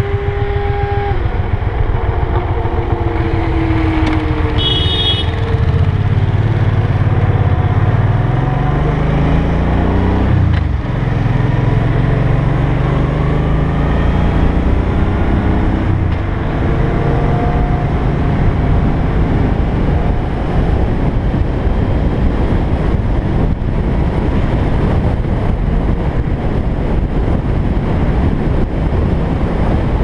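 Motorcycle engine pulling away and accelerating through the gears, its pitch climbing in steps, then settling into a steady cruise under a heavy rush of wind and road noise. A brief high-pitched beep sounds about five seconds in.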